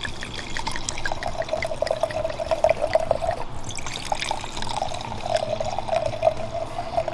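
Red wine poured from a bottle into a stemmed wine glass, a steady gurgling pour in two spells with a short pause about halfway.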